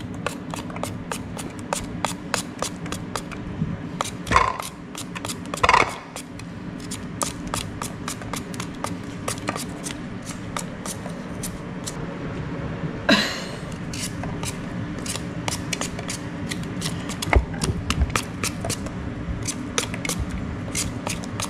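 A small knife shaving thin slices off a crisp green ambarella: a quick, irregular run of short sharp cuts, about three or four a second, over a low steady hum.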